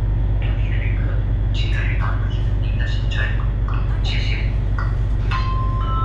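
Steady low drone of the sightseeing boat's engine, with short higher-pitched sounds coming and going over it. Near the end a rising four-note chime begins.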